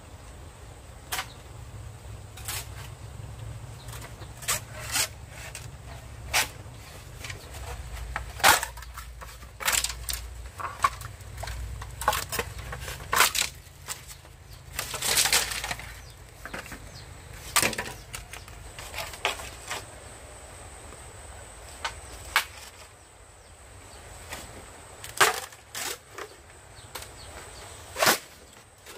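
Wood being struck and split by hand: irregular sharp knocks and cracks, one every second or two, over a steady low rumble.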